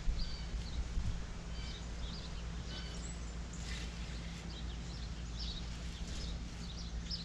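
Small birds chirping in many quick, short calls over a steady low rumble.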